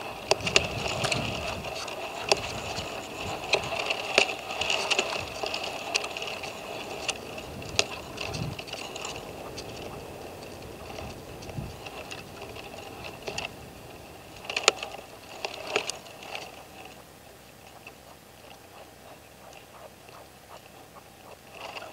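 Caged red-legged partridge decoy calling: rapid runs of sharp, clicking and chattering notes. They are dense and loud through the first half, with a couple of sharp notes about fifteen seconds in, then thin out and fade.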